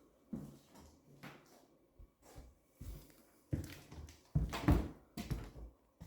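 A series of irregular thuds and knocks in a small room, loudest and closest together about four and a half seconds in.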